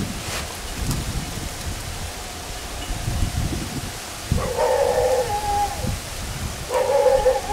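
Soft rubber topwater lure worked across the water surface, with a steady low splashing and gurgling. Two flat, pitched calls from an unseen source come over it, the first about four and a half seconds in and a shorter one near the end.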